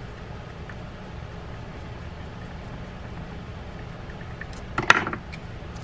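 Small screwdriver tightening a bridge screw on a fishing reel: little more than a steady low hum, then one sharp clack of the screwdriver about five seconds in.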